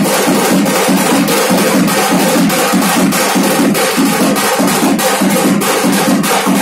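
Punjabi dhol drums played in a fast, steady rhythm of several strokes a second.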